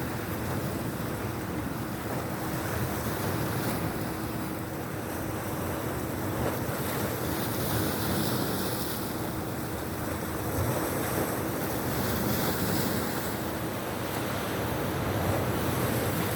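Sea waves washing ashore in a steady rush that swells and eases, with wind buffeting the microphone.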